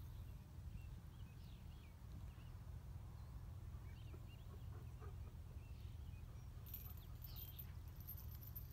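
Faint open-field ambience: a steady low rumble with scattered faint bird chirps, and a brief burst of very high-pitched chirring about seven seconds in.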